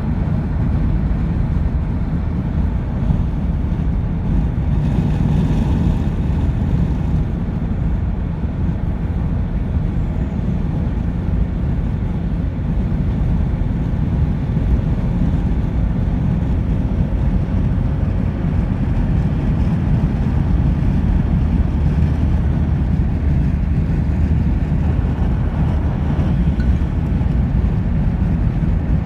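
Car driving: steady engine and road noise, deep and unbroken.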